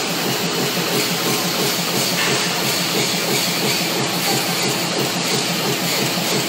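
Screw thread-rolling machine running at speed: a steady, dense mechanical noise with a fast, even rattle from its reciprocating flat die.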